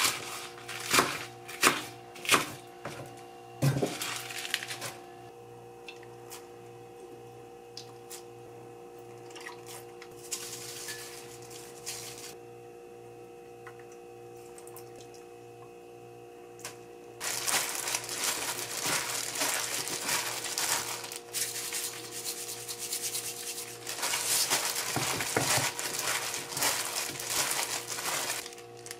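A few sharp knife chops on a wooden cutting board at the start. About two thirds of the way in, a plastic-gloved hand begins tossing seasoned young napa cabbage in a glass bowl, with steady crinkling and rustling of the glove and wet leaves.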